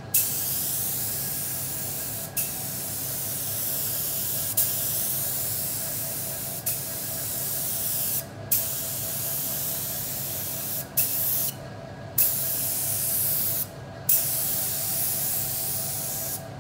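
DeVilbiss SRi Pro Lite spray gun spraying leather paint: a loud, steady hiss of air and atomised paint. The hiss stops briefly about seven times as the trigger is let off between passes.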